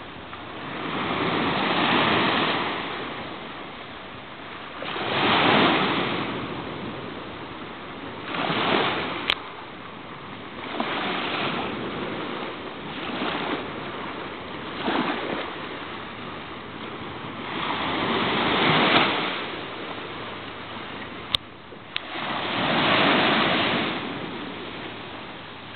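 Small Mediterranean waves breaking and washing up a sandy beach, the surf hiss swelling and fading every few seconds. Two sharp clicks, about a third of the way in and again near the end.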